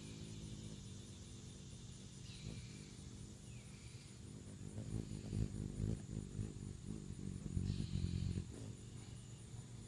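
Hummingbird's wings hum in a low, even buzz while it hovers at the straw, fading out in the first second as it moves off. A few short high chirps follow. Low rumbling thumps, the loudest sounds, come about five and eight seconds in, over a faint steady high whine.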